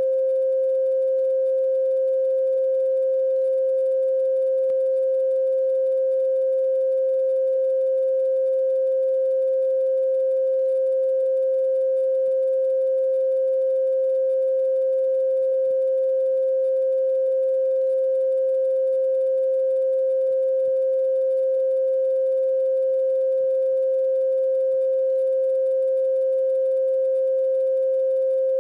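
A single steady pure tone, held at one pitch without a break and with faint higher overtones: a sine-like background drone.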